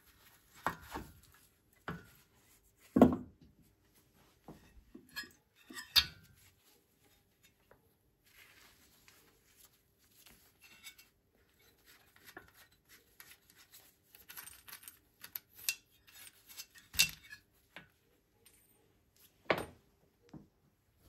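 Metal clinks and knocks as parts are handled on a Csepel 125 motorcycle engine, the loudest about three seconds in and a few more scattered through, with glove rustling between.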